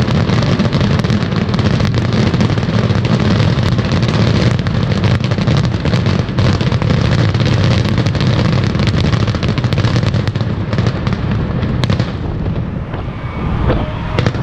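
Fireworks finale: rapid, overlapping bangs and crackles of aerial shells bursting over a steady low rumble, thinning out about twelve seconds in as the display ends.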